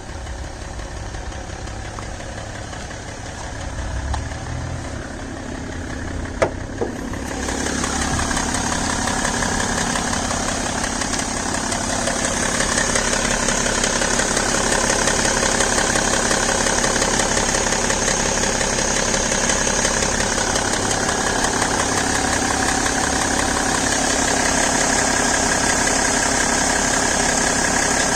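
BMW E60 525d straight-six diesel engine idling with a tick/click noise, which the owner hears only while the engine is cold. Two sharp clicks come about six seconds in, and the sound gets louder and brighter about seven seconds in.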